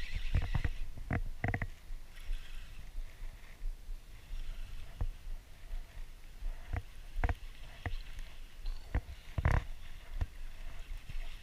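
Low wind rumble on the microphone, with scattered sharp knocks and clicks from handling a baitcasting rod and reel in a small aluminium fishing boat.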